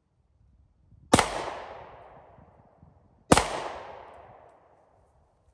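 Two shots from a Taurus 9mm pistol, a little over two seconds apart, each followed by a long echo dying away.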